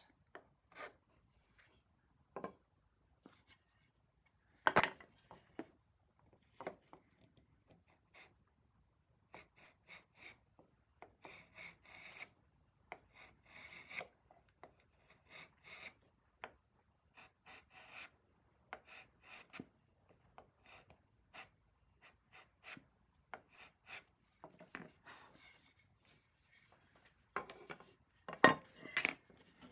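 Hand file rasping across a rosewood tenon in short, irregular strokes, shaping it at an angle so it just starts to enter its mortise. A single sharp knock about five seconds in, and a louder cluster of knocks near the end.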